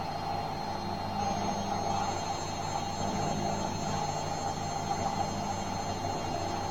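Bosch washing machine running: a steady mechanical hum with a thin high-pitched whine that joins about a second in.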